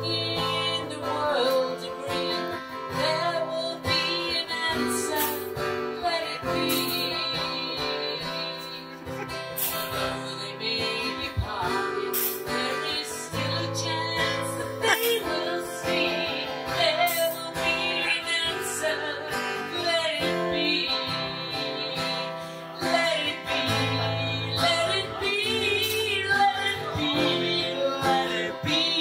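Background song with strummed guitar and a singing voice.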